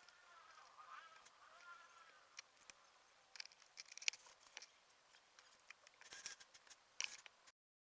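Faint sharp clicks and snaps of plastic model kit parts being cut from the runner and fitted together, a few scattered over the second half, over a faint hiss; the sound cuts off abruptly near the end.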